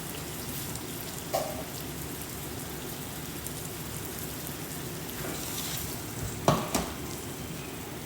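Rice frying in a pan with a steady sizzling hiss, broken by a sharp knock about a second in and two more close together near the end.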